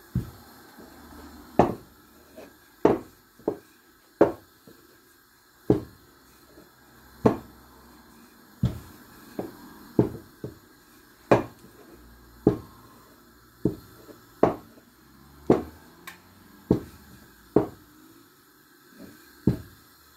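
Wooden rolling pin knocking against the worktop while chapati dough is rolled out: about twenty sharp, irregular knocks, roughly one a second.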